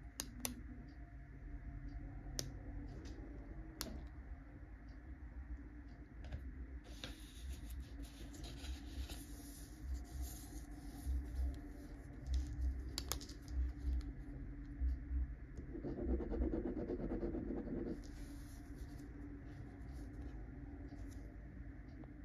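Tombow AirPress ballpoint pen handled with a few sharp clicks, then its tip scratching and scribbling on paper, with low bumps against the desk along the way. The densest scribbling comes about two-thirds of the way through.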